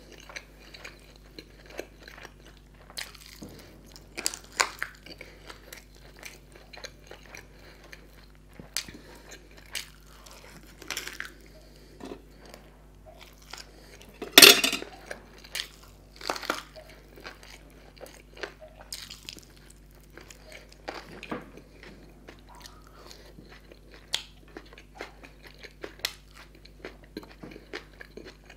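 Close-miked chewing and biting of tandoori chicken leg and kebab meat, eaten by hand: wet mouth sounds with irregular crunchy bites. There is one loud sharp crunch or knock about halfway through.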